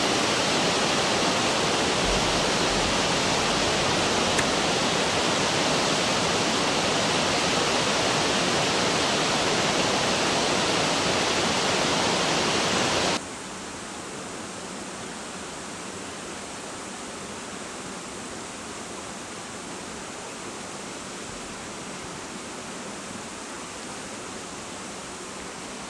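Steady rushing of flowing river water. About 13 seconds in it drops abruptly to a quieter level and carries on evenly.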